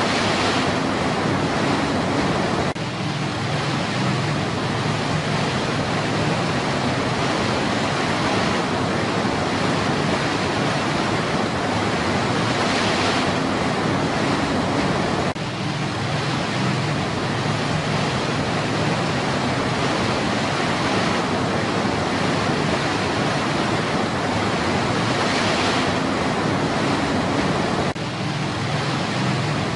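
Rushing water: a steady, dense hiss that dips briefly three times, about twelve seconds apart.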